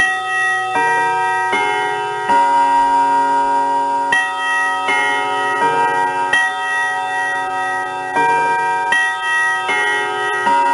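Grandfather clock chime playing a melody of ringing bell tones, one note about every 0.8 s in phrases of four, with a short pause between phrases; each note rings on under the next.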